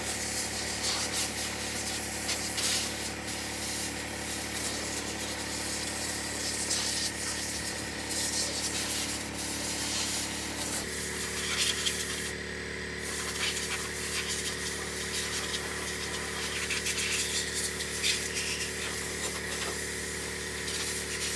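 Compressed air hissing from a blow gun in uneven bursts, with a steady motor hum underneath whose pitch shifts about halfway through.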